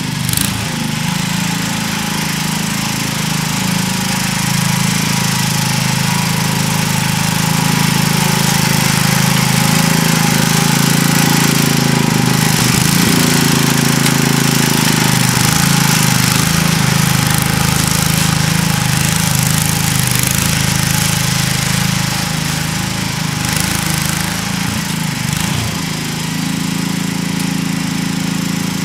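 Sears ST16 garden tractor engine running steadily under load while plowing, growing louder as the tractor comes closer, loudest about midway, then easing off as it pulls away.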